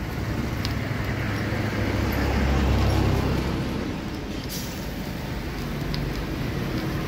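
Street traffic noise, with a low vehicle rumble that swells and fades about two to three seconds in. A few sharp clicks of kitchen scissors snipping food over the pot.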